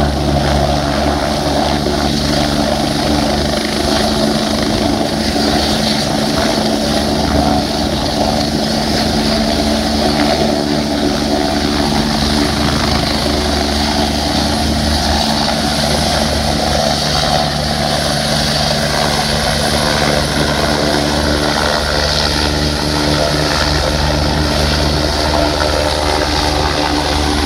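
Medical helicopter lifting off and climbing away overhead, its rotor and turbine engines running at a steady, loud level.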